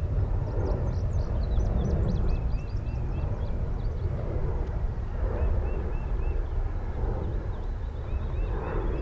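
Steady low rumble of a B-2 stealth bomber's jet engines overhead, with songbirds chirping in short runs of quick repeated notes.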